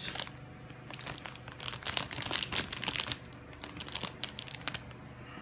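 Clear plastic bags holding plastic model-kit runners crinkling as they are handled, in two spells of rapid crackling with a short pause between them.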